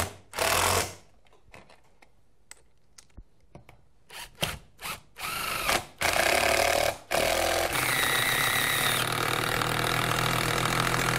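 Cordless drill driving coarse-thread lag screws through a steel door bracket and rubber weather stripping into a wooden backer in a garage door panel. A short burst at the start, a pause with a few faint ticks, then several short runs and finally one long steady run with a whining motor pitch.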